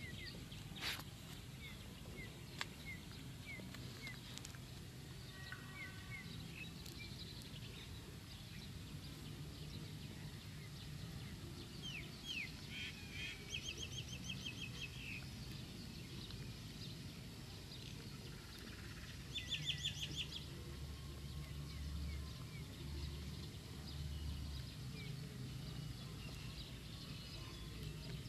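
Outdoor ambience of birds chirping, with two short runs of rapid trilled notes, one near the middle and one about two-thirds through, over a low steady hum.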